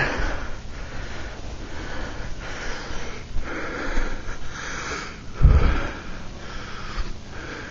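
A person breathing and sniffing close to the microphone, in a rhythmic series of noisy breaths, with one low thump about five and a half seconds in.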